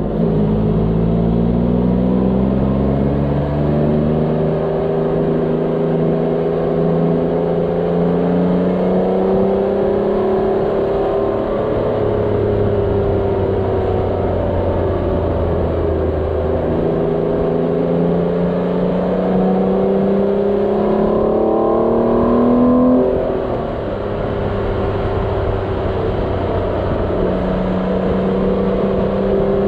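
Motorcycle engine under way, its pitch climbing and dropping back several times as the rider shifts and eases off through the bends, with a clear drop about 23 seconds in. Steady wind and road noise run underneath.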